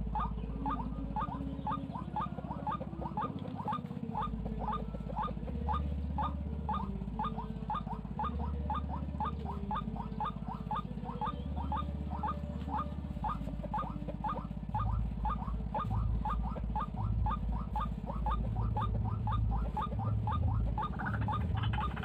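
White-breasted waterhen calling: a fast, steady series of short, sharp notes, about three a second, kept up without a break.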